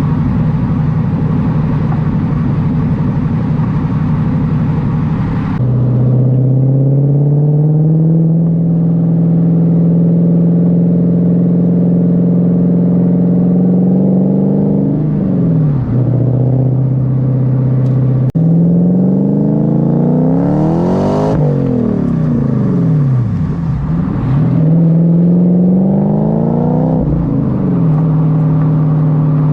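1998 Lexus GS400's supercharged V8 exhaust, through 4.5-inch Dodge Ram exhaust tips, while driving. A rough drone changes abruptly to a clearer engine note about six seconds in. The engine note then climbs and drops several times as the car revs and shifts gears.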